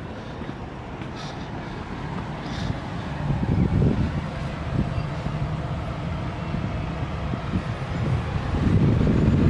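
City road traffic: cars passing on a busy road, a steady rumble that swells about three seconds in and again near the end.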